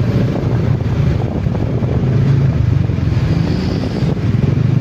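A vehicle's engine running steadily at a constant pace, heard on board with wind and travel noise.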